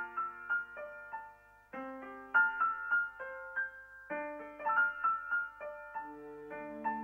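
Instrumental music: a piano-toned keyboard playing a melody of single struck notes over chords, with a lower note joining near the end.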